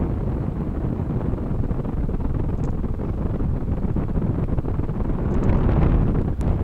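Wind from a paraglider's flight rushing over the camera microphone: a steady low rumble that swells briefly near the end.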